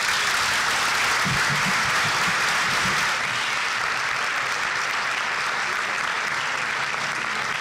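Audience applauding steadily after a speech, easing slightly after about three seconds.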